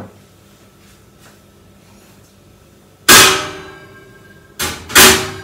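Metal oven clanging as a baking dish is pushed onto the rack of a built-in wall oven and the oven door is shut: one loud ringing clang about three seconds in, then a short knock and a second loud clang near the end.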